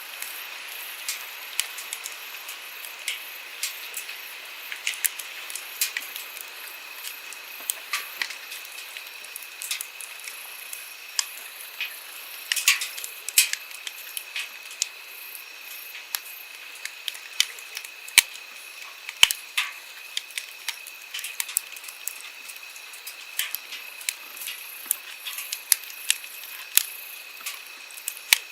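Firewood burning in a campfire, crackling with frequent irregular sharp pops, over the steady rush of a flowing stream.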